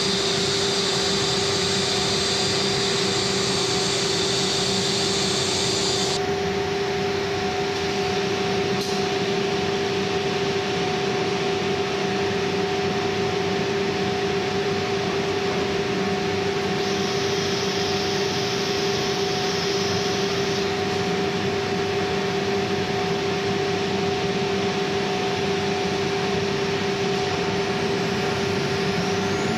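Woodworking ATC CNC router running, with a steady pitched spindle whine over constant machine and extraction noise. A higher hiss joins for the first six seconds and again for a few seconds past the middle.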